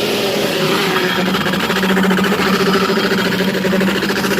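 Motor of a wrapping machine running with a steady, constant hum.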